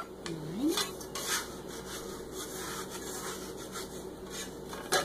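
A metal tin can knocked down onto a wooden butcher-block counter, then soft rubbing and scraping of dough and a metal tool against the floured wooden board, with a short rising tone about half a second in and another knock near the end.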